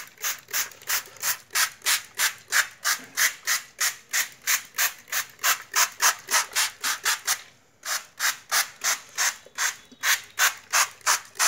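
Hand trigger spray bottle spritzing water onto newspaper laid over a seed tray. The squeezes come in a steady run of short hisses, about three a second, with a brief pause about two-thirds of the way through.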